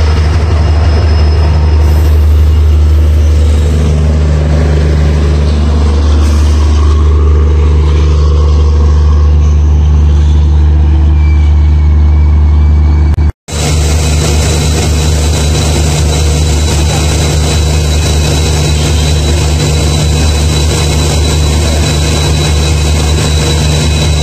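Passenger train rolling past a platform, with a steady low diesel engine drone. After a cut about halfway through, the EMD WDP-4D diesel locomotive's engine is running steadily at standstill.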